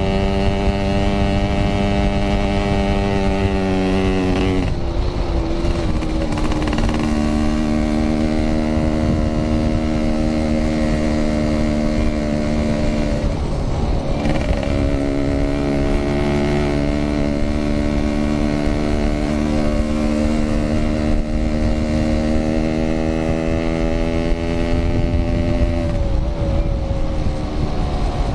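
Yamaha RX King 135cc two-stroke motorcycle engine running under way at steady revs. The engine note briefly breaks and shifts pitch about five seconds in, again about fourteen seconds in, and near the end.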